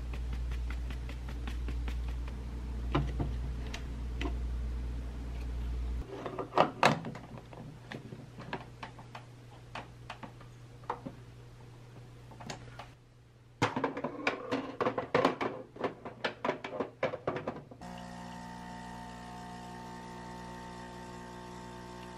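Clicks and knocks of a metal portafilter being filled with ground coffee, handled and locked into a De'Longhi home espresso machine, over a low hum that stops about six seconds in, with a busier clatter in the middle. About four seconds from the end the machine's vibratory pump starts a steady buzz as it pulls a single espresso shot.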